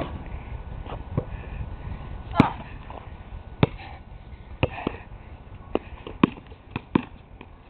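Basketball bouncing on a concrete driveway: a series of sharp thuds about once a second, coming quicker near the end. A low rumble of wind on the microphone runs under it.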